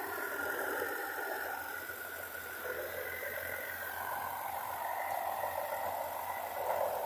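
Steady, noisy drone of a farm machine's engine running, without clear changes in speed.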